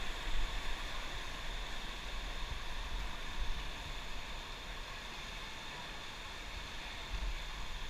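Steady rush of river water, with wind rumbling on the microphone.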